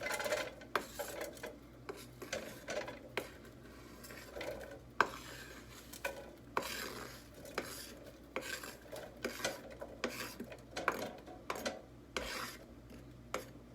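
A utensil stirring and scraping chopped onion, bell pepper and garlic in a pot of olive oil, with irregular clinks and scrapes against the pot.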